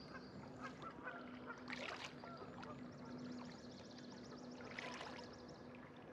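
Kayak paddle dipping into calm water and dripping, with two louder strokes about three seconds apart, over faint background music.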